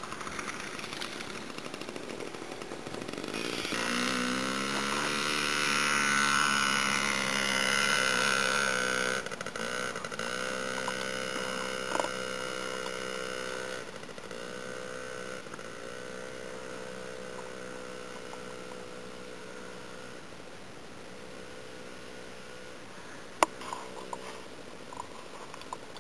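Small dirt bike's engine revving up and down as it is ridden, loudest for the first several seconds. It then drops to a lower, steadier drone that slowly fades as the bike moves off into the distance. A sharp click near the end.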